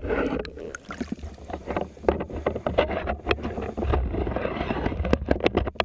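Underwater noise from a spearfisher moving: rushing, bubbling water around the camera with a low rumble and many sharp clicks and knocks, stopping suddenly near the end.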